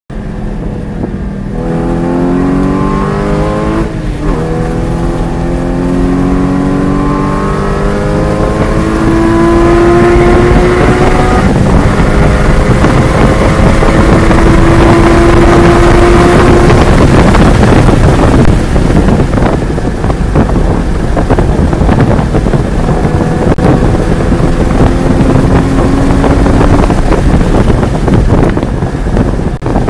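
Porsche 981 Cayman GT4's flat-six engine heard from inside the cabin, accelerating hard with the pitch climbing and dropping back at each upshift. After about 18 seconds the engine note falls back under loud wind and tyre noise as the car slows for a corner, then climbs again near the end.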